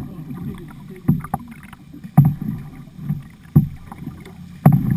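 Kayak paddle blades dipping and splashing into the water in regular strokes, about one every second or so.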